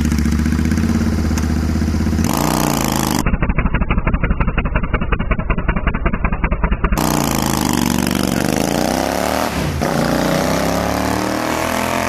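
Royal Enfield Interceptor 650's 648 cc parallel-twin engine running with its silencers off, very loud, revved hard for a burnout. The revs climb about two seconds in and hold high with rapid, even firing pulses, then swing up and down several times before easing off near the end.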